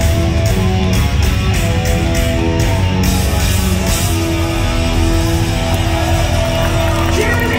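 Live heavy metal band playing loudly through a concert hall PA: electric guitars holding sustained notes over bass and drums in an instrumental passage.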